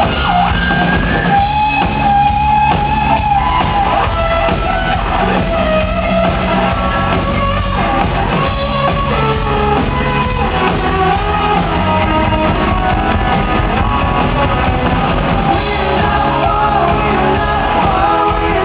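Rock band playing live, electric guitar and bass under a singer's voice, at a sound check.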